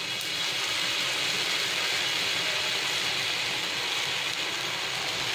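Besan batter sizzling steadily in oil on a hot tawa while it is spread out with a steel spoon.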